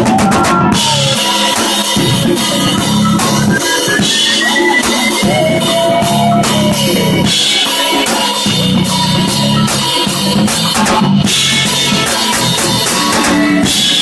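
Live jazz-funk band playing loudly, with a drum kit driving hard over bass and keyboards. A lead part slides its notes up and down.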